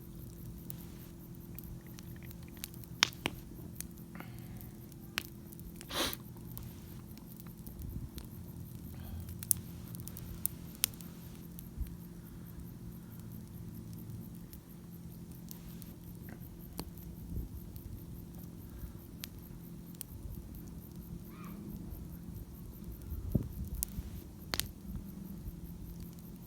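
Wood campfire crackling, with scattered sharp pops every second or few, over a low steady hum.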